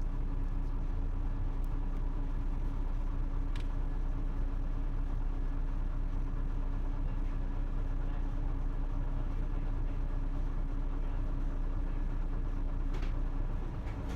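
Isuzu Erga city bus's diesel engine running steadily at an even speed, without revving, heard from inside the bus, with a couple of light clicks.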